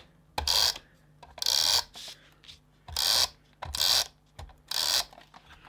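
Easy Runner Grand double-sided tape runner drawn along paper tabs in five short strokes, each about a third of a second long and roughly a second apart, laying tape onto the card.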